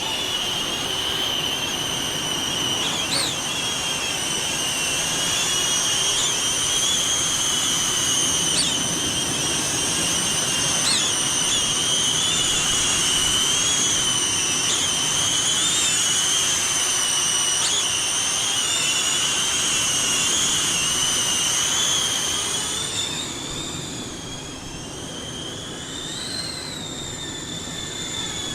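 Small caged FPV drone's motors and propellers whining steadily in flight, with several brief jumps in pitch. Near the end the whine drops, wavers and rises again.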